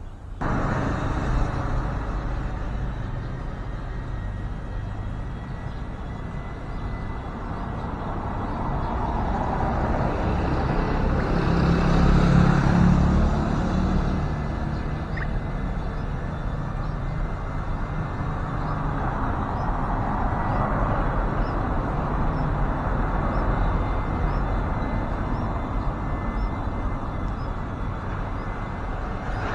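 Road traffic noise, a steady rumble that swells as a vehicle passes, loudest about twelve seconds in.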